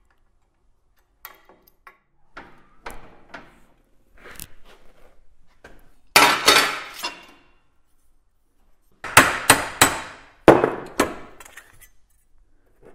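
Sheet-metal work on a small 18-gauge steel repair piece. First scattered clicks and clanks as the bending brake and metal are handled, then a loud ringing metal clang about six seconds in. Near the end come about five sharp hammer blows roughly half a second apart: a flat body hammer tightening the piece's bend.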